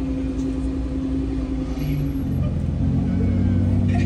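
Car engines running in street traffic: a steady engine note, joined about two seconds in by a deeper, slightly louder engine.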